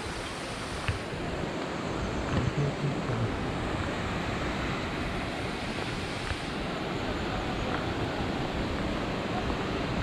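Steady rushing noise of a mountain waterfall, the Răchițele (Vălul Miresei) cascade, with a few faint footsteps on a gravel track.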